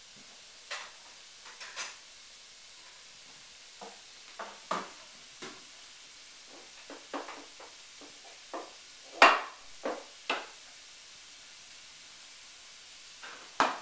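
Jars and cans being pulled off pull-out pantry shelves by a toddler: scattered clinks and knocks of containers against the shelving and the wooden floor, the loudest about nine seconds in.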